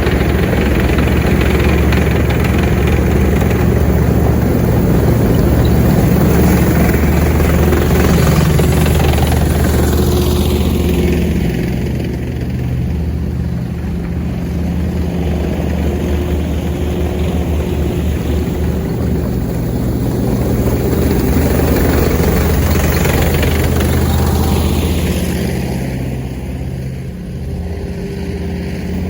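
Military tank engines running loud and steady as tanks travel along the road, the sound easing a little about twelve seconds in and again near the end.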